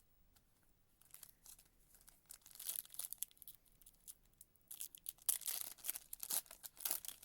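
A foil trading-card pack wrapper being torn open and crinkled by hand, in irregular crackly bursts that start about a second in.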